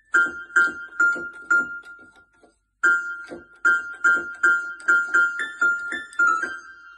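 Electronic keyboard played by a cat's paw: single notes struck again and again, mostly the same high note. After a short pause a little past two seconds in, the strikes come quicker, and near the end the note shifts a little in pitch.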